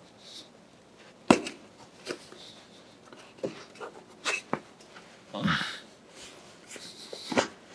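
Scattered knocks and clicks as a thick rubber tire is stretched by hand onto the bottom wheel of a large bandsaw, the loudest a sharp knock about a second in. A strained, breathy grunt of effort comes a little past the middle.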